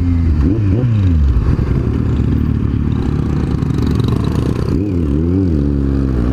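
Kawasaki Z750 inline-four motorcycle engine running in traffic. The pitch falls as the throttle is eased off in the first second or so, holds low and steady, then rises and falls again about five seconds in.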